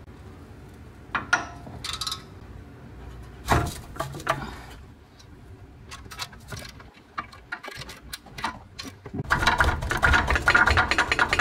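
Hand tools working on a car's front strut and shock spreader: a few sharp metal knocks and clinks in the first seconds, scattered light ticks, then a dense, fast metallic clatter from about nine seconds in.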